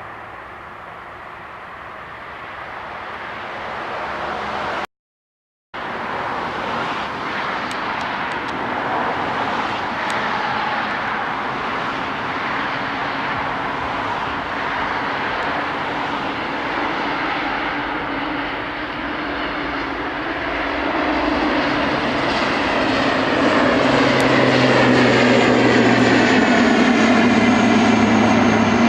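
Aircraft engine noise, a steady rush that grows louder as the plane comes closer, with a sweeping, phasing tone near the end. It drops out completely for under a second about five seconds in.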